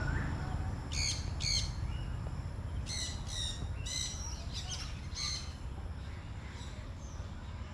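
Parrots and parakeets calling: a series of short, high, pitched calls in twos and threes, over a steady low rumble.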